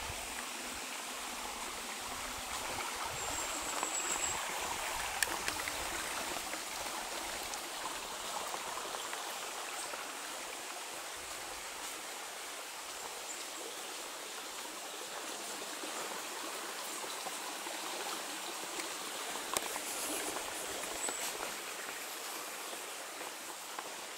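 Steady rushing of flowing stream water, with a brief faint high whistle a few seconds in.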